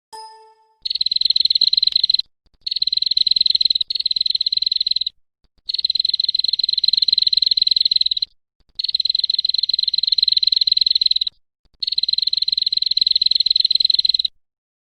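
Five long, fast-pulsing buzzy trills from an animal, each lasting about one and a half to two and a half seconds, separated by short pauses.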